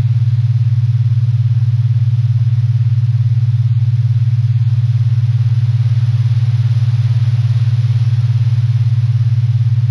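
A loud, steady low hum or drone with a fast, even throb that does not change.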